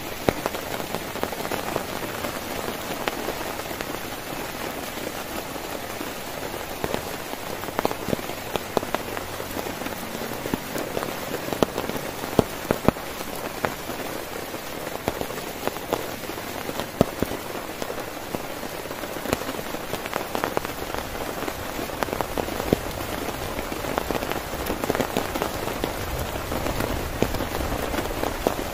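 Heavy rain falling steadily on a tent, with many separate drops landing as sharp taps over the constant hiss.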